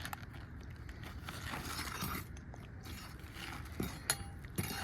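Scraping and irregular clicking of hand work prying at a nailed part, with a couple of sharper clicks near the end.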